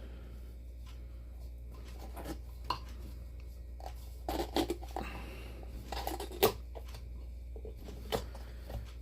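Scattered short scrapes and clicks as the old stopper of a large snow globe is worked and pried loose, over a steady low hum.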